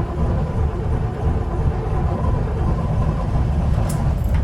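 Volvo marine diesel engine running at a steady low idle just after its first cold start of the season. A single sharp click comes near the end.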